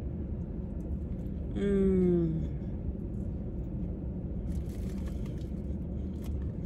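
A woman's brief 'mm'-like vocal sound, falling in pitch, about two seconds in, over a steady low background rumble; faint soft rustles follow near the end.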